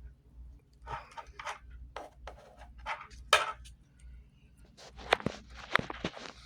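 Hand-held thumb joystick module and its wired board being worked around: irregular rattles and scrapes starting about a second in, with a few sharp plastic clicks near the end, over a faint low hum.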